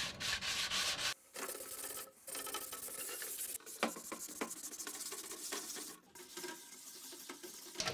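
A wet sanding pad rubbing back and forth over a filled and primed carbon-fiber rudder blade in a paste of sanding slurry, polishing the finish rather than cutting it. The scrubbing breaks off briefly about a second in, again at two seconds, and once more near six seconds.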